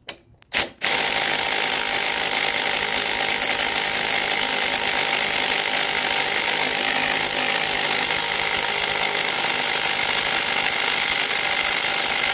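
Cordless impact tool hammering continuously on a lawn mower's blade bolt, which does not break loose. The hammering starts just under a second in, after a couple of sharp clicks.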